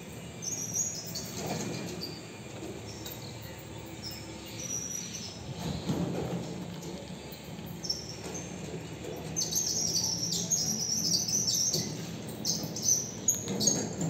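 Birds chirping in short, high calls scattered throughout, coming thickest in the last few seconds, over a low background hum.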